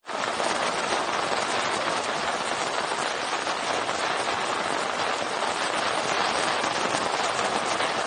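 Heavy rain pouring down steadily on paved ground and tiled roofs: a dense, even hiss of countless drops.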